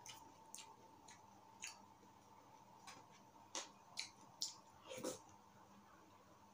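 Faint, scattered clicks and small wet mouth sounds of a spoon scooping soft-serve ice cream from a cup and the eater taking spoonfuls, bunched in a quick run a little past the middle, over a faint steady hum.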